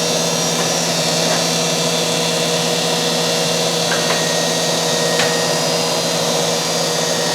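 Heald 271 toolroom internal grinder running through its automatic grinding cycle: a steady motor hum and whine over a high hiss, with a few faint ticks.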